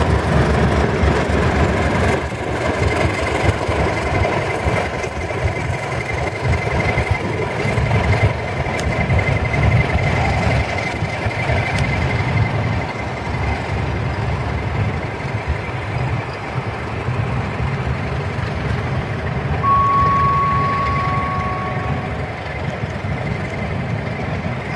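Engine of a Class 31 diesel locomotive (English Electric V12) running with a steady low rumble as it hauls a Network Rail test train along the platform. A thin high whine runs over it through the first half, and a single steady beep sounds for about two seconds near the end.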